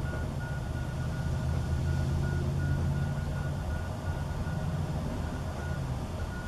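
A low engine rumble that swells a couple of seconds in and then eases off, with a faint high tone pulsing on and off.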